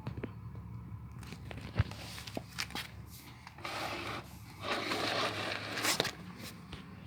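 Handling noises: scattered clicks and knocks, with two longer stretches of rustling or scraping about halfway through, over a low steady hum.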